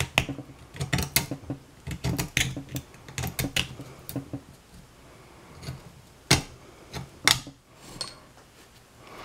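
Thin metal pick scraping and tapping at a rust-thinned steel AC condenser fan mounting bracket, with the bracket shifted in the hands: a run of irregular metallic clicks and scratches, thinning out after about four seconds, then two sharper clicks.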